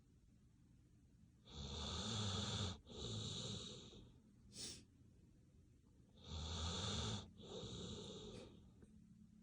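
A sleeping dog snoring: two slow breaths, each drawn in two noisy parts lasting about a second apostrophe-free each, with a short extra puff of breath between them.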